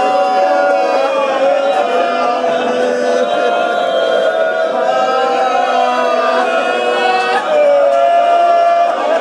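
A man's voice chanting Urdu verse in long, drawn-out sung phrases, holding notes and gliding slowly between them.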